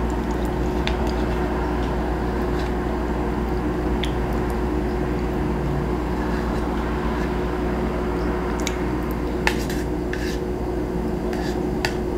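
A metal spoon clicking and scraping now and then against a small plastic yogurt cup while someone eats, with the loudest click about nine and a half seconds in. A steady hum runs underneath.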